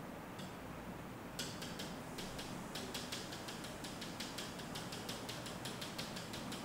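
Stylus tapping rapidly on an interactive display screen, dotting in stippled dots: a quick, uneven run of light, sharp ticks starting about a second and a half in.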